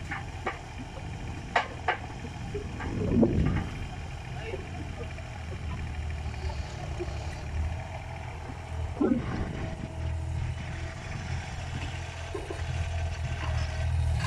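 Kubota mini excavator's diesel engine running steadily, getting louder toward the end as the arm swings out and the bucket lowers. A few sharp knocks come in the first couple of seconds, with a louder clunk around three seconds in.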